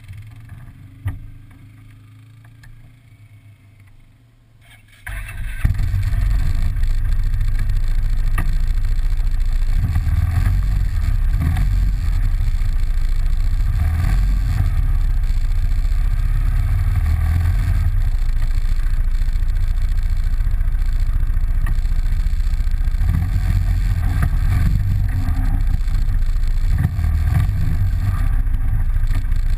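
ATV engine: faint at first, then about five seconds in it suddenly becomes loud and runs close by with a deep, steady rumble.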